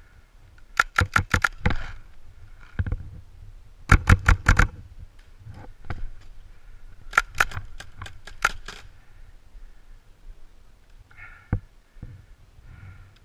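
Paintball marker firing in three rapid bursts of about half a dozen sharp pops each, spaced a few seconds apart, with a few quieter knocks near the end.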